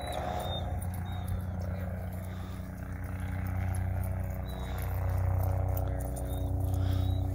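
Steady low droning hum of a distant motor, growing a little louder in the second half, with a few short high chirps over it.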